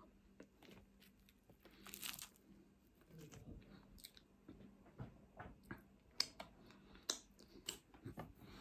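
Faint close-up eating sounds: chewing chip-shop chips and battered fish cake, with a soft rustle about two seconds in and scattered crunches and mouth clicks in the second half.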